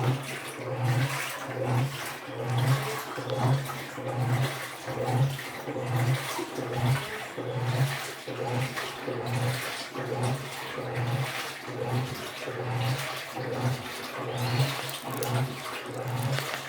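Midea 12 kg washing machine agitating a load in water: the motor hums in pulses a little over once a second as the drum swishes back and forth, with water sloshing throughout.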